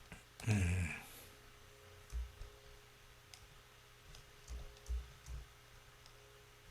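Scattered faint computer mouse clicks with a few soft low thumps. About half a second in there is one short, louder sound that falls in pitch.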